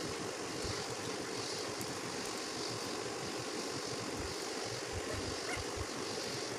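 A steady, even drone, machine-like in character, with scattered soft low bumps as hands handle the puppy on the tabletop.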